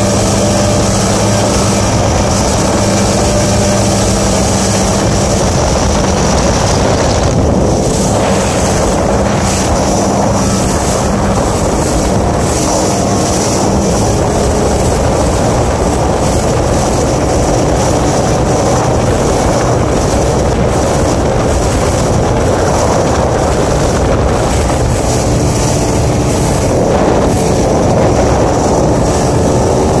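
Yamaha 150 outboard motor running steadily at planing speed, mixed with the rush of water off the hull and wake and wind buffeting the microphone.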